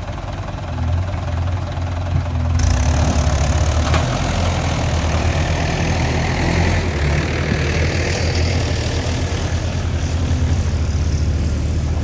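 Heavy diesel engine running at a steady low speed with an even, rapid beat. A broad hiss joins it about two and a half seconds in.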